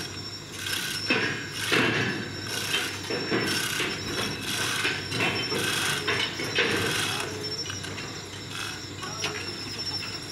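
Irregular metallic clanks and chain rattling from a hand chain hoist hung from a tripod as it is worked to handle rail. A steady high insect trill carries on behind.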